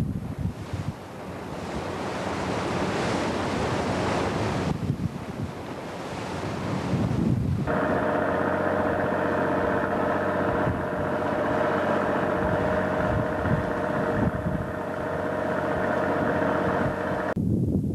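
Wind buffeting the microphone over waves washing along a fishing boat's hull. From about eight seconds in, a boat engine's steady drone runs over the rush of the wake, and it cuts off near the end.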